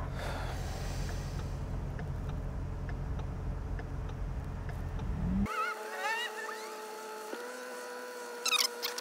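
Shelby GT350's 5.2-litre flat-plane-crank V8 running at a steady low speed while driving, heard as a low drone inside the cabin. About five seconds in it rises briefly, then the low drone cuts out abruptly. What remains is a thinner sound with a few steady tones and some chirps.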